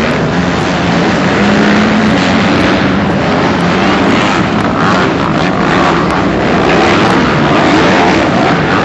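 Several motocross bikes racing together on a dirt track, their engines revving up and down in pitch.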